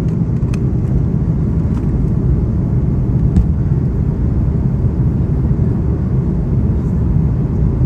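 Steady low rumble of an airliner's engines and rushing air heard inside the passenger cabin on approach to landing, with a few faint clicks in the first few seconds.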